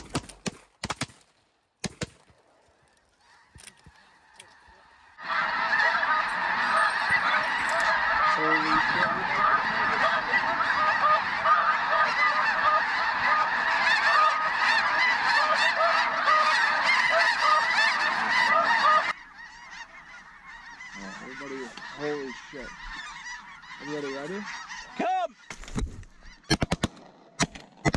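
A huge flock of snow geese calling in flight, a dense din of overlapping honks and yelps that cuts in suddenly about five seconds in and cuts off just as suddenly near nineteen seconds. After that come fewer, separate goose calls. The opening seconds are quiet apart from a few clicks.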